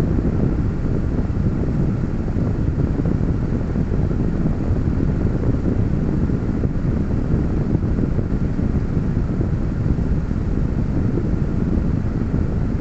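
Car engine idling, heard from inside the cabin as a steady low rumble with a faint hiss above it.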